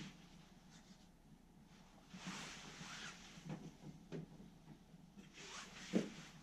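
Faint rustling and a few light knocks from someone handling things in a small wooden room, the loudest knock near the end.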